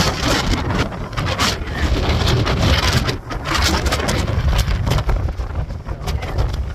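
High mountain wind buffeting the microphone: a heavy low rumble with rushing noise that swells and drops with the gusts.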